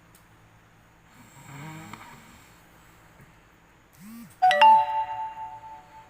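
A sleeping person snores once, faintly, about a second in. About four and a half seconds in, a loud chime with several steady tones rings out and fades over about a second and a half.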